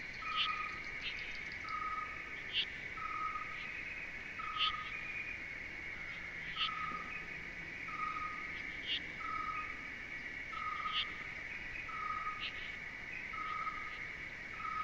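Nature ambience: a steady insect trill, a short whistled note repeated evenly about once a second, and occasional brief higher chirps.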